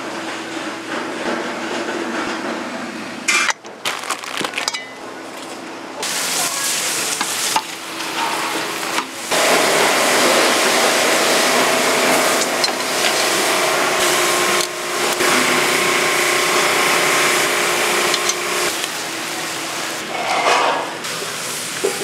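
Spicy chicken stew sizzling and bubbling in a large cast-iron cauldron-lid pan while being stirred, the sound changing abruptly several times.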